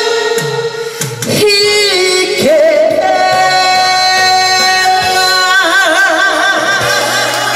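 A woman singing a Korean trot song into a microphone over a backing track, holding long notes. She glides up to a high held note about two and a half seconds in, and a wide vibrato comes in on it near the end.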